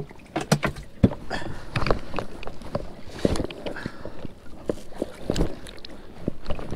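Clicks and knocks of a plastic kayak hatch lid and gear being handled, then hands being rinsed and shaken off over lake water, with splashes and drips.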